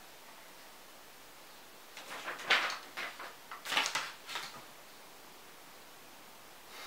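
A sheet of paper rustling as it is handled and let go, in a cluster of short noisy bursts lasting about two and a half seconds, starting about two seconds in.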